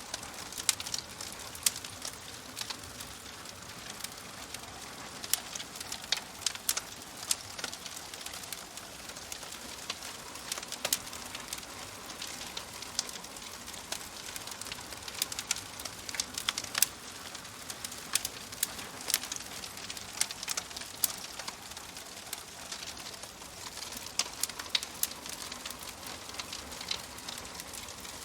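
Wood fire crackling: a soft steady hiss with frequent sharp, irregular pops and snaps.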